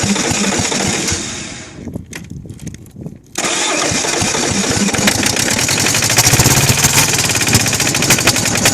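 Kohler KD425-2 two-cylinder diesel cranking on its starter. It stops for about a second and a half, then is cranked again from about three and a half seconds in, with even pulses as it tries to fire. It is hard-starting because it is losing its fuel prime.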